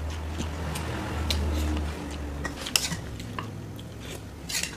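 A spoon clinking and scraping against a bowl a few times while someone eats, the sharpest clink a little under three seconds in. A low hum runs under the first half, then stops.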